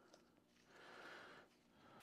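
Near silence: room tone, with one faint soft swish about a second in.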